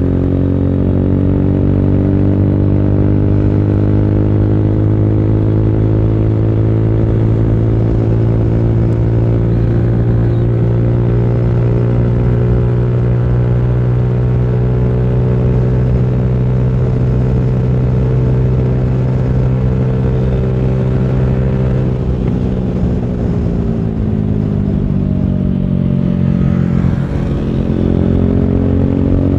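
Yamaha YBR125G motorcycle's single-cylinder four-stroke engine running steadily at road speed. About three-quarters of the way through its pitch falls as the bike slows, then rises again near the end as it accelerates.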